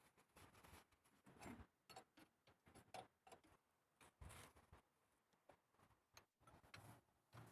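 Near silence with faint, scattered clicks and knocks at an uneven pace.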